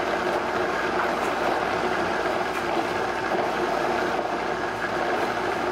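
Vitamix countertop blender running steadily, blending a green smoothie.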